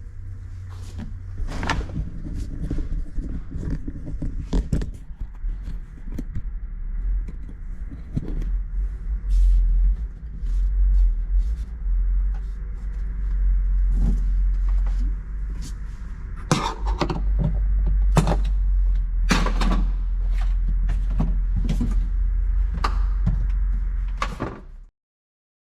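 A series of sharp knocks and thuds over a steady deep rumble, all cutting off abruptly near the end.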